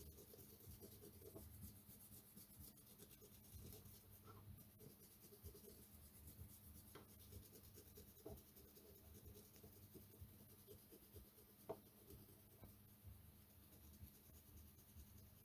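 Faint rubbing and scrubbing over a circuit board as flux is cleaned off the soldered IC pins, with a few light ticks.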